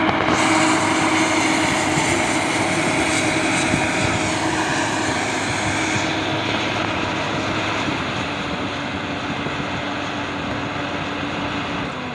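Komatsu PC200 hydraulic excavator's diesel engine running steadily, easing slightly in loudness toward the end.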